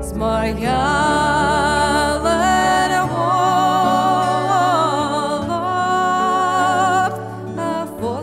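Music: a slow, held melody line with vibrato over sustained low accompaniment.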